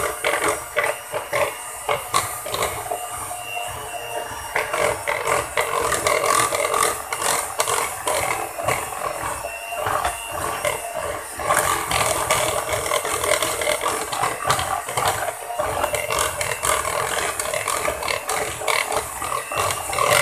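Electric hand mixer running steadily, its beaters whisking chocolate cake batter in a plastic bowl, with frequent rattling clicks throughout.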